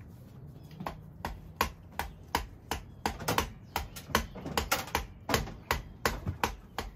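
A run of sharp, irregular clicks, about three a second, from a small hand tool being worked in the hands.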